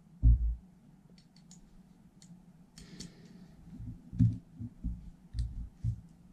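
Pistol parts being handled for reassembly: a SIG P320 slide, barrel and recoil spring picked up and fitted, with a dull knock just after the start, scattered light metal clicks and a few more knocks in the second half.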